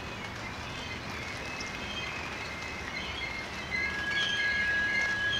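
Freight train rolling past with steady wheel-on-rail noise. About two-thirds of the way in, a high, steady wheel squeal starts and the sound grows louder.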